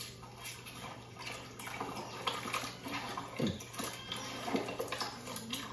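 Mutton pieces being mixed by hand in a curd and lemon-juice marinade in a bowl, with irregular wet squelching.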